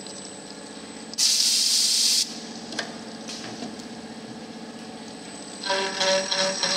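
Special-purpose check-nut milling machine running with a steady hum. About a second in, a loud burst of compressed-air hiss lasts about a second. Music comes in near the end.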